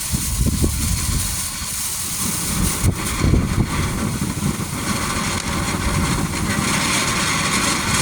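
Night Reign ground fountain firework burning with a steady hiss of spraying sparks over a low rumble, the hiss growing louder about five seconds in.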